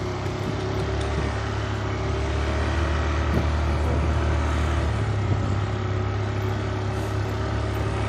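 Motorcycle running steadily at riding speed along a dirt track, with a constant low drone and an even rush of wind and road noise.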